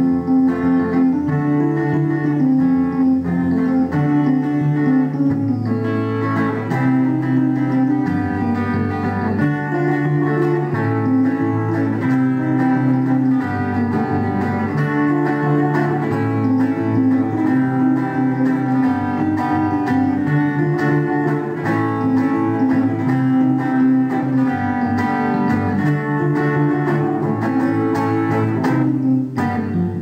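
Electric guitar and electronic keyboard playing a song live, with a steadily stepping bass line.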